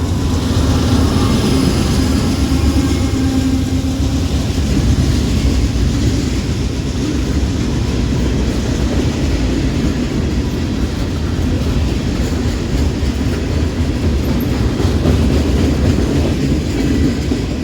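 A ballast train rolling past: a steady rumble of freight cars on the rails with a clickety-clack of wheels over the track. A faint steady hum in the first few seconds fades out.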